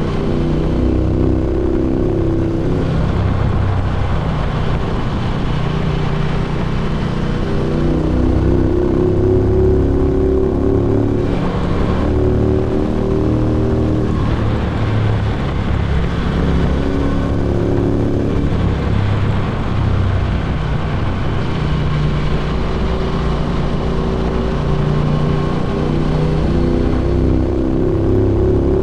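Motorcycle running on Meerkat Norton-style exhausts while being ridden along a road. The exhaust note is steady, with its pitch stepping up and down several times as throttle and gears change, over a constant rush of wind and road noise.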